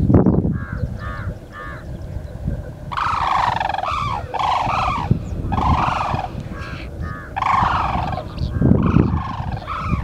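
Sarus cranes trumpeting: a few short calls, then from about three seconds in a run of loud, repeated calls, long and short mixed, roughly one a second. A brief low rumble at the very start.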